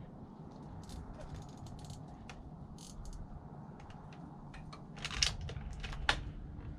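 Air Venturi Avenger PCP air rifle being handled and worked between shots: scattered small metallic clicks and rattles, with a louder cluster about five seconds in and another click about a second later.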